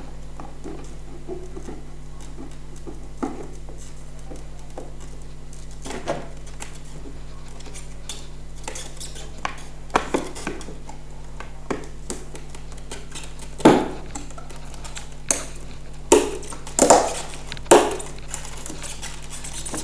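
Black 5 mm acrylic panels clicking and knocking against each other as the top plate of a laser engraver frame is worked onto the tabs of the box and pressed into place. Light scattered clicks at first, then a cluster of louder knocks in the last few seconds.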